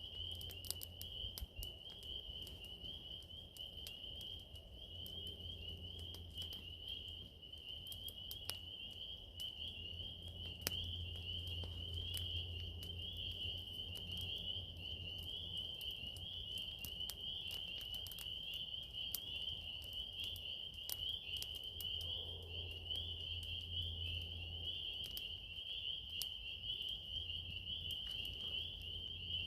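Steady high-pitched chorus of calling insects, like crickets, with scattered sharp ticks and a low rumble that comes and goes.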